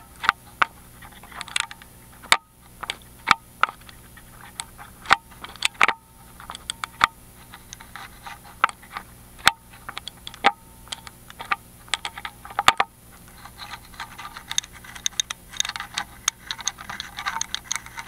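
Steel lock pick clicking and scraping against the spooled magnetic pins inside a Miwa EC cylinder lock under light tension from a tension wrench, while probing for pin 2. Irregular sharp ticks, a few louder ones, then a quicker run of scratchy raking clicks near the end.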